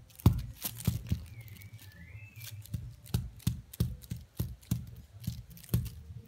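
Quick, irregular rustling taps, about a dozen, from a cat batting and grabbing a feather wand toy on a fabric couch.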